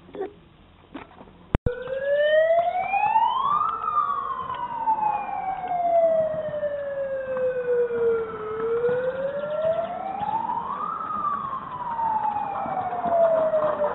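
A siren wails slowly up and down, starting abruptly about a second and a half in. It rises for about two seconds, falls slowly over about five, then rises and falls again: the signal starting a paintball game.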